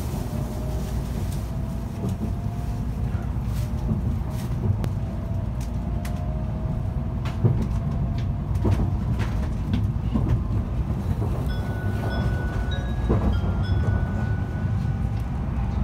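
Inside a Tokaido Shinkansen car picking up speed: a steady low rumble with scattered knocks, and a faint whine slowly rising in pitch through the first half. A few short high tones sound near the end.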